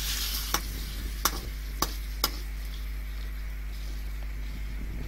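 Spatula stirring shredded cabbage and carrot in an aluminium kadai, scraping and striking the pan with four sharp clanks in the first two and a half seconds, over a light sizzle that fades soon after the start.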